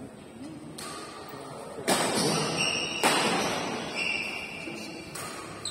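Badminton rackets striking a shuttlecock in a rally: four sharp hits about a second apart, the second and third the loudest, echoing in a large hall. Short high squeaks come between the hits, typical of court shoes on the floor.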